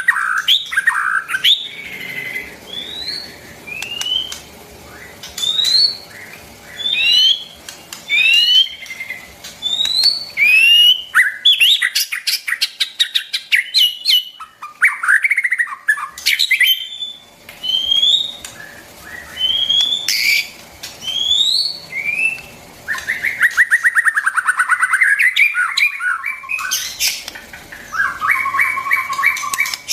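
White-rumped shama singing a run of short rising whistled notes. From about two-thirds of the way through it switches to harsh, buzzy rattling notes.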